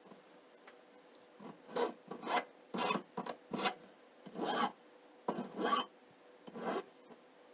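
Hand file rasping over the edge of a small silver sheet piece braced on a wooden bench pin: about nine short strokes, irregularly spaced, starting about a second and a half in.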